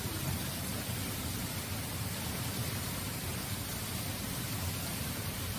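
Steady noise: an even hiss with a low rumble beneath it, unchanging throughout, with no distinct knocks, calls or voices.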